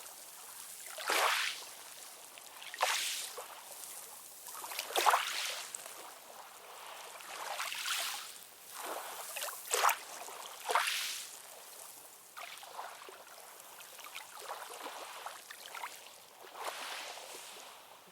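Ocean water splashing and lapping in small waves, short irregular surges of hiss every second or two with little deep rumble.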